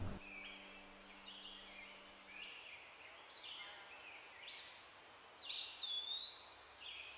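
Songbirds calling in a forest: short high chirps repeated every second or so, with one longer whistled note that rises and then levels off about two thirds of the way in, over a faint hiss.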